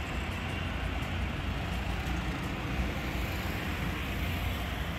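City road traffic noise: cars and auto-rickshaws passing, a steady rumble with a hiss over it.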